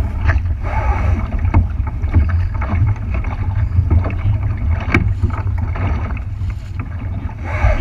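Small boat on open water: a steady low rumble of wind buffeting the microphone, with water noise and scattered knocks and splashes against the hull.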